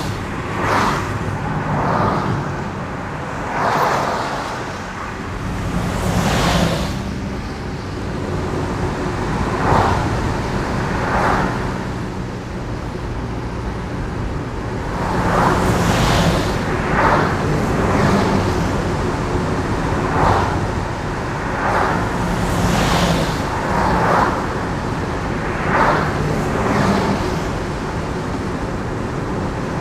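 Car driving on a wet road: a steady low engine hum under tyre hiss from the wet surface, the hiss swelling and fading every second or two.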